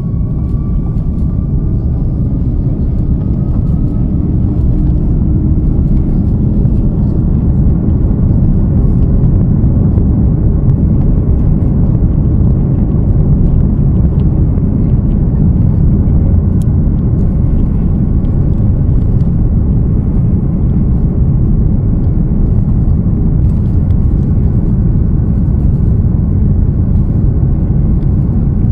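Jet airliner heard from inside the cabin: a loud, steady low engine rumble with a faint whine slowly rising in pitch, as the engines run at high power during the takeoff or climb.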